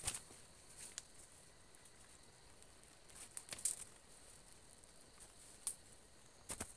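Footsteps and shifting rubber boots on dry bamboo leaves and twigs: faint, irregular crackles and rustles, in a few short clusters.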